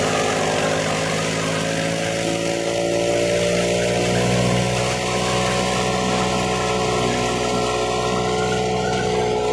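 Tractor-driven Doger wheat thresher running while threshing, blowing out chaff: a steady mechanical drone with a hum of several tones and the tractor's engine underneath. One tone sags slightly in pitch in the first few seconds, then holds.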